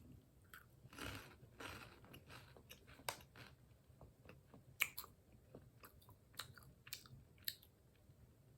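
A person biting into and chewing puffed corn-ball snacks, with a string of faint, sharp crunches. The puffs are dry and 'styrofoam-ish' rather than melting in the mouth.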